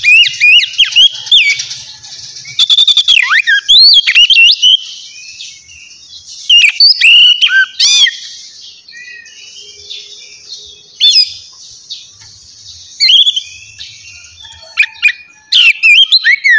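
Birds chirping: many short, quick chirps that slide up and down in pitch, often overlapping, with a thinner stretch in the middle.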